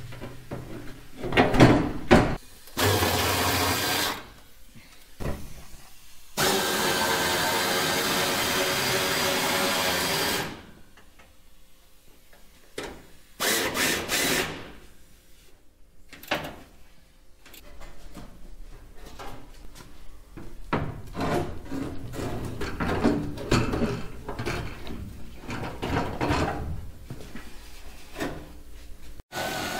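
A power drill run in several bursts, the longest about four seconds, as a fender is bolted back on, with knocks and clanks of metal parts being handled in between.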